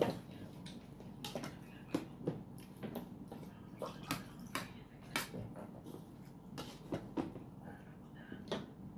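Mealtime sounds: scattered sharp clicks and mouth smacks from eating, with spoons clinking on ceramic plates, and water poured from a plastic bottle into a glass about a third of the way in.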